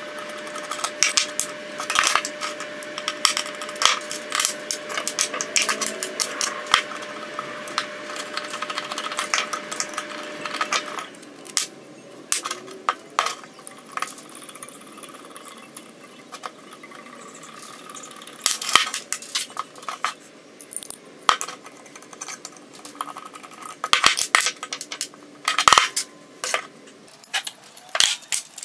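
Irregular metallic clinks, taps and clatter as the rusty parts of an antique hand plane are handled and taken apart with a screwdriver and set down on a wooden bench.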